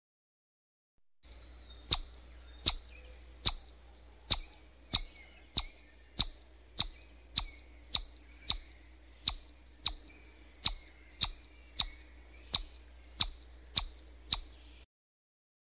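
Chipmunk giving its repeated chip call: a run of about twenty sharp, high chips, roughly one and a half a second, over a faint low hum.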